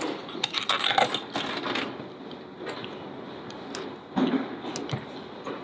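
Spiral-coil snack vending machine dispensing: clicks as the selection button is pressed, then a steady mechanical run as the coil motor turns, and a low thud about four seconds in as the packet drops into the tray, with a second knock soon after.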